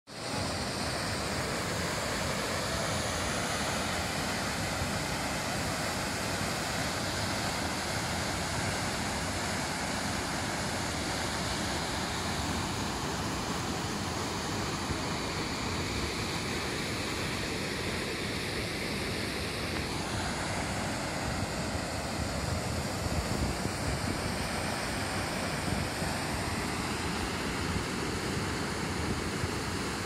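Steady rushing roar of a waterfall pouring over rock ledges into a pool, with a slight shift in the noise about twenty seconds in.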